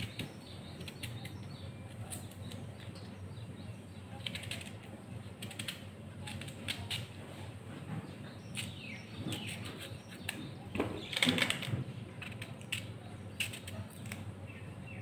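Kitchen knife peeling and slicing raw green mango: a string of short, crisp scrapes and clicks as the blade cuts through the firm fruit. A busier run of strokes comes about nine to twelve seconds in, loudest around eleven seconds.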